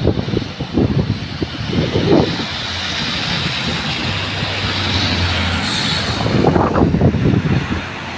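Single-decker city bus driving past close by on a wet road: a steady engine hum that peaks as it goes by, over the hiss of its tyres on the wet tarmac, with irregular low rumbles before and after.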